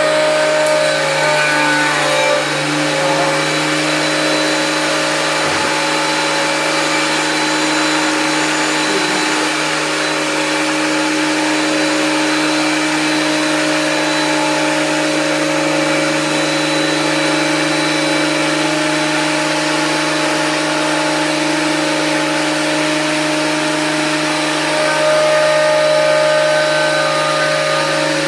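13-inch benchtop thickness planer with a 15 A motor running steadily, a loud high-speed motor and cutterhead whine with a slight rise in loudness near the end.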